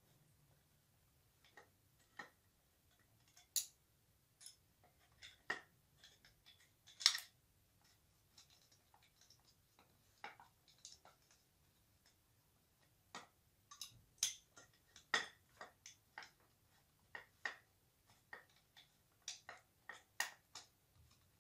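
Irregular light metallic clicks and taps from hands fitting and fastening M5 bolts into the aluminium frame of a Creality Ender 3 Pro 3D printer during assembly.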